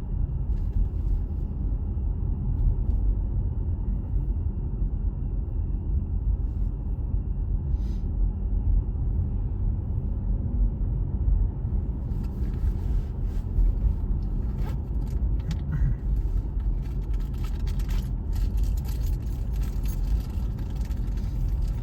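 Steady low rumble of a car driving, with light rattling and ticking joining in about halfway through.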